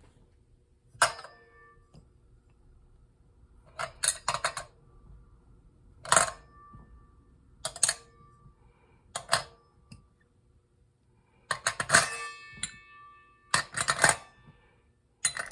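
Loose metal parts of a hand crank drill clinking and knocking as they are handled and set down during disassembly. There are single knocks and a few quick clusters, each with a short metallic ring.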